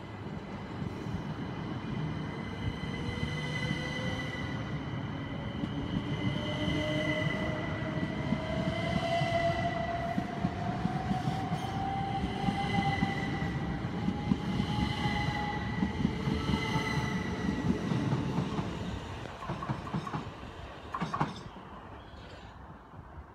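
Class 375 Electrostar electric multiple unit gathering speed past the platform, its traction motors whining in a slowly rising pitch over rolling wheel noise. The sound fades away after about eighteen seconds, and a few sharp clicks follow near the end.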